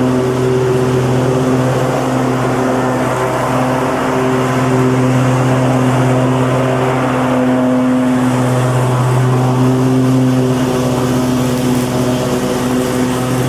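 Lawn mower engine running steadily at constant speed, an even, unbroken drone.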